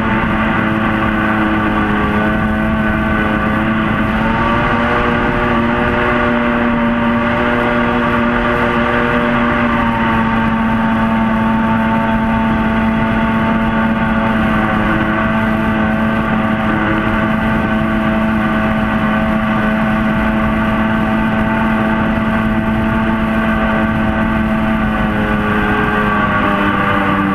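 Mini jet boat's engine and jet drive running hard at a steady high speed, its pitch holding with small shifts. Right at the end the pitch begins to drop as the throttle eases.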